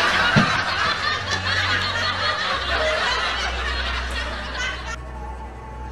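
People laughing and snickering, fading over a few seconds and cutting off sharply about five seconds in.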